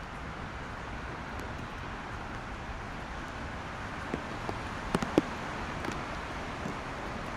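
Steady hiss of distant traffic on wet roads, with a few sharp raindrop taps close to the microphone about four to five seconds in.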